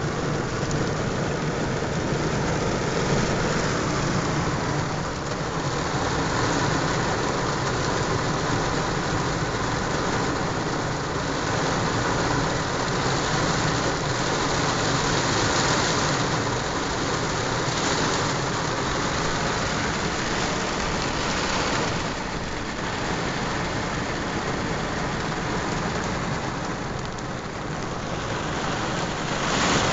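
Heavy rain falling steadily on a pickup truck, with slight swells in strength, heard from inside the cab.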